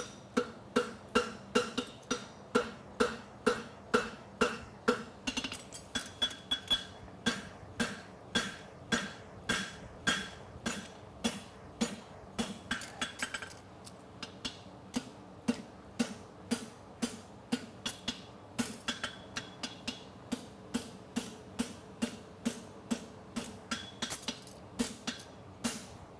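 Farrier's hammer striking a red-hot steel horseshoe bar on an anvil, two to three blows a second, each with a ringing note. The steel is being drawn out.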